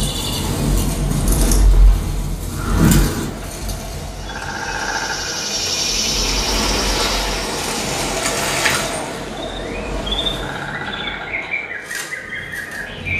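A film's forest soundtrack played through a Klipsch Dolby Atmos home theater system and heard in the room. Low rumbling swells and two heavy thuds come in the first three seconds, then a high steady chirring, and short birdcalls chirp near the end.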